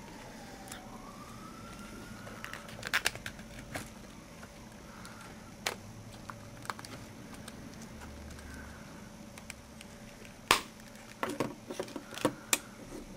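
Scattered sharp plastic clicks and snaps as the Nokia N73's front fascia is unclipped from its housing, with a cluster of clicks near the end, over a low steady background hiss.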